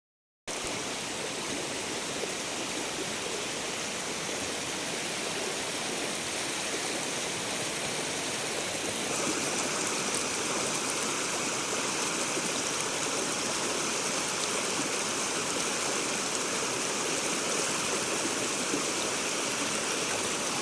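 Steady rush of flowing stream water, a little louder and brighter from about nine seconds in.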